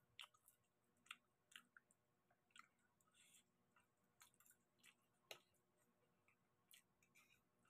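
Faint eating sounds of people eating garlic butter prawns and spaghetti: soft chewing with scattered sharp little clicks and smacks at uneven intervals, the strongest about a quarter second in, about a second in and a little after five seconds.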